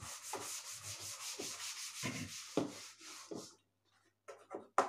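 A green chalkboard being wiped clean with a duster, in rapid back-and-forth rubbing strokes for about three and a half seconds. After a short pause there are a few brief taps near the end.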